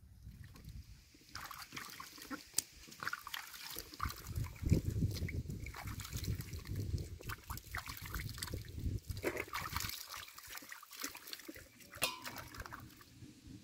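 Tomatoes being washed by hand in a metal basin of water: irregular splashing, sloshing and dripping as they are rubbed and lifted out, starting about a second in.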